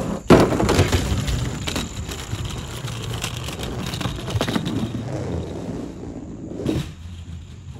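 Large toy monster truck rolling down a plastic slide and along board ramps: a continuous rumble of its tyres with scattered clatters, loudest just after it is let go and fading toward the end.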